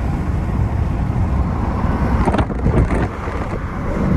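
Vehicle on the road: a steady low rumble of engine and tyre noise.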